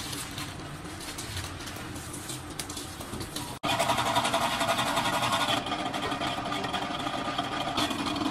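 A quieter stretch ends in an abrupt cut about a third of the way in. After the cut, a small motor-driven wire-stripping machine runs with a fast, even mechanical rattle, and it is louder.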